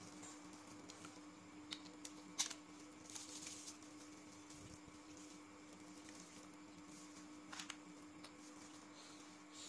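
Faint clicks and small cracks of cooked shrimp and clam shells being peeled and picked apart by hand, the sharpest click about two and a half seconds in, another near the end, over a low steady hum.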